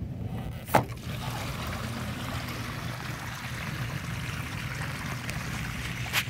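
RV black water tank gate valve pulled open with a sharp clack about a second in, then sewage water rushing steadily out of the tank through the sewer hose as the black tank drains. Another click near the end.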